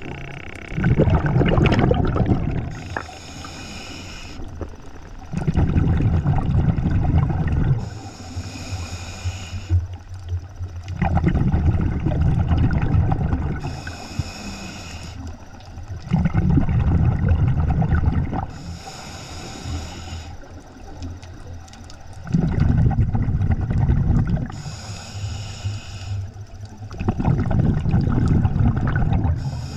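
Scuba diver breathing through a regulator underwater: a short hissing inhale, then a longer burst of exhaled bubbles, repeating about every five and a half seconds.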